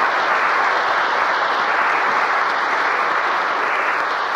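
Congregation applauding steadily, heard on an old AM radio broadcast recording.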